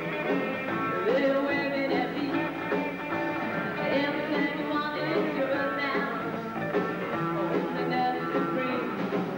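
Live rock band playing: electric guitar and drums, with a singer's voice over them.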